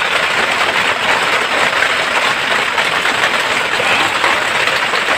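Heavy rain falling steadily, an even hiss with no letup.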